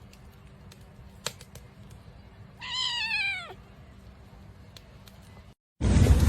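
A domestic cat gives one meow about a second long, falling in pitch toward the end. A sharp click comes just before it. Near the end the sound cuts out and loud rushing noise begins.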